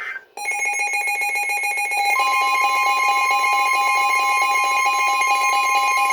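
Emergency Alert System attention signal: after a short gap, a steady alarm tone near 850 Hz starts, and a second, higher tone near 1 kHz joins it about two seconds in, the two sounding together as the two-tone EAS alert that precedes a broadcast warning message.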